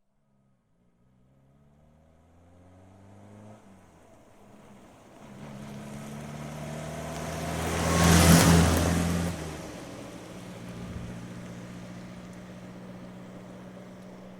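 Ford Fiesta car approaching with its engine climbing in pitch under acceleration, easing briefly about three and a half seconds in, then passing close with a loud rush of engine and road noise about eight seconds in, and fading away on a steady engine note.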